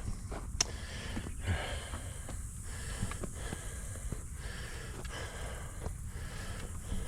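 A tired hiker breathing hard and rhythmically, about one breath a second, from the exertion of a long walk.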